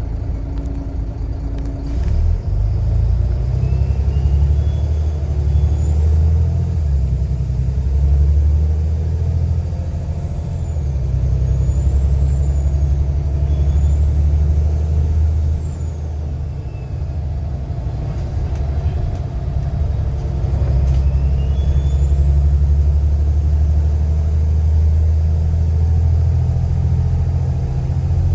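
Volvo B7TL bus's 7-litre six-cylinder turbodiesel running under load, with a high turbo whistle over the engine's rumble. The whistle rises and falls several times as the bus works through the gears, then climbs steadily about two-thirds of the way through and holds high.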